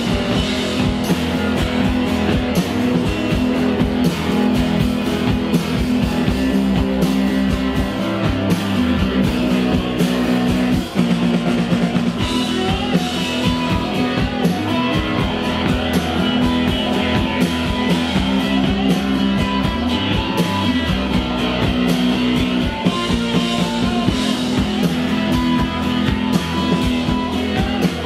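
Live rock band playing, with electric guitars and a drum kit.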